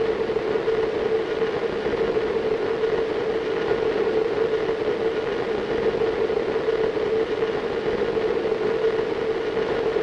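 A steady, unchanging industrial drone: even rushing noise with a strong hum near 500 Hz.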